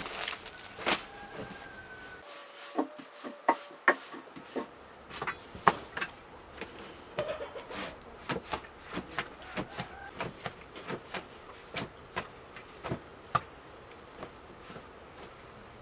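Irregular soft slaps and pats of thin flatbread dough being tossed from hand to hand and spread over a stuffed bread cushion, a sharp slap every second or so.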